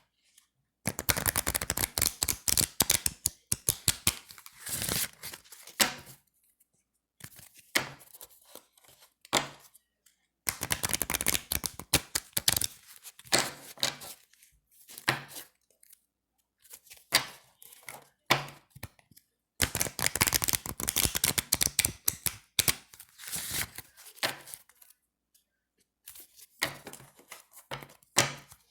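Deck of thin, slick playing cards being riffle-shuffled: several runs of rapid fluttering clicks as the card edges snap past each other, a few seconds each, separated by short pauses and single taps of the cards.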